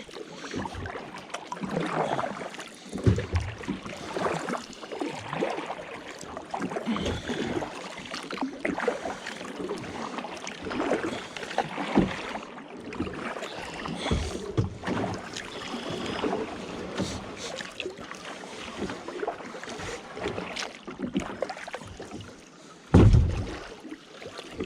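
Kayak paddle strokes splashing in the water, one every second or two, with a louder low thump near the end.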